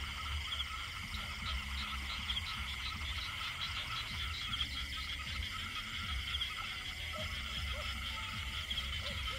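Chorus of many frogs calling together, overlapping rapid pulsing trills, with a low steady rumble underneath.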